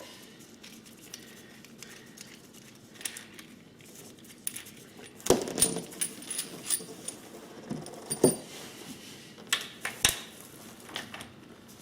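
Light metallic clinks and knocks of a handlebar, its clamp halves and bolts being handled and fitted, scattered through, with a few louder knocks about five, eight and ten seconds in.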